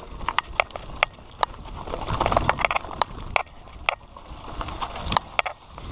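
Mountain bike rattling over a rough, overgrown dirt trail: irregular sharp clicks and knocks from the bike over a steady rushing noise.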